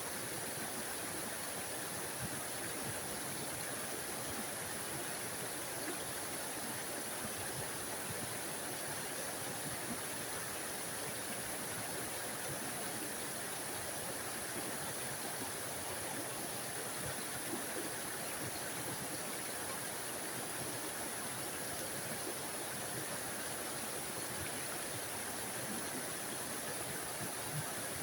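Small forest waterfall: water falling and splashing in a steady, even rush with a hissing top end.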